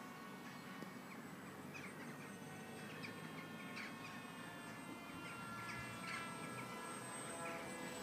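Small birds chirping, short calls every second or so, over a steady high whine made of several held tones.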